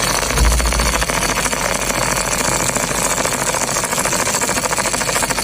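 Miniature model engine running steadily with a fast, even mechanical chatter, with a brief low bump about half a second in.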